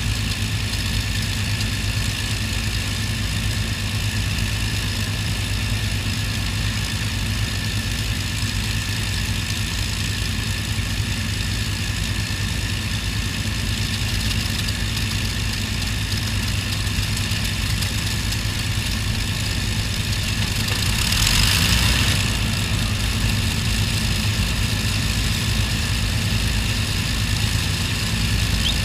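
Avro Lancaster's Merlin V12 piston engines running steadily on the ground, a low even drone with no change in pitch. About three quarters of the way through, a brief rushing hiss swells over it for a second or so.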